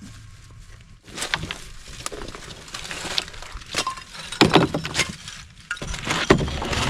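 Concrete foundation blocks clinking and knocking against one another as they are handled and stacked for loading. The run of sharp hits starts about a second in, and the loudest hits come in the second half.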